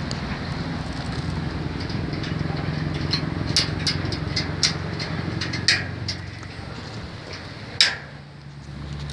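Sharp metal clicks and knocks from a trailer's spring-loaded drop-side latch being worked by hand, the loudest near the end, over a steady low motor hum.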